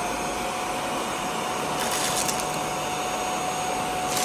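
HEAPETS handheld mattress vacuum cleaner running steadily with a high motor whine over its airflow noise, with a brief rush of hiss about two seconds in.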